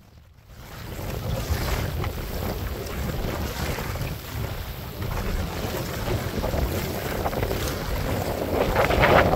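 Wind buffeting the microphone over water sloshing around a kayak, starting about half a second in; a louder rush of water near the end.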